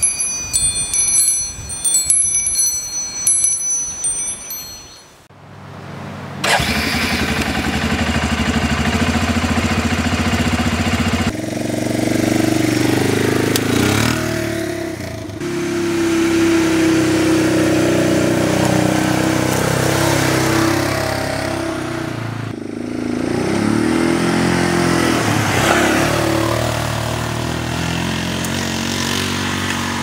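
Metal tube wind chimes ringing for the first few seconds. About six seconds in, an ATV engine starts up and runs for the rest, its pitch rising and falling as it revs.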